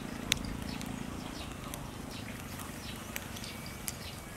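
Octopus and squid grilling on a wire rack over charcoal: a steady sizzle broken by a few sharp pops, the loudest about a third of a second in. Short chirps repeat several times a second behind it, like a small bird calling.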